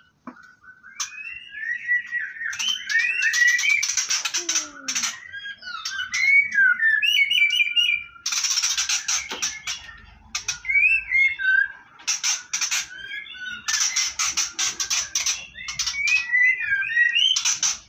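White-rumped shamas calling: quick whistled chirps and slurred notes, broken several times by bursts of harsh, rapid rasping chatter.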